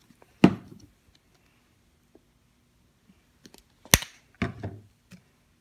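A few sharp knocks and light clicks of plastic paint bottles being handled and set down while paint is dotted onto cardboard: one knock near the start, then a cluster of three or four about four seconds in, the first of those the loudest.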